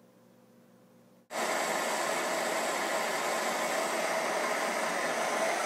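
Faint room tone, then about a second in, cutting in suddenly, four vintage Optimus pressure box stoves burning together, including a roar burner: a steady, loud rushing noise of pressurised burners at full flame.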